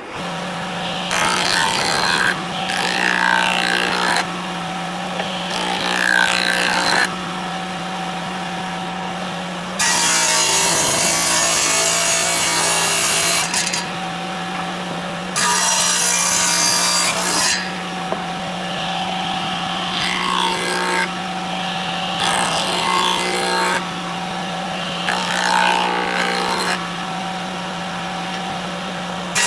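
A power tool working wood: a steady motor hum runs throughout, and the tool bites into the wood in repeated passes of one to four seconds each, with loud scraping and hissing that starts and stops abruptly.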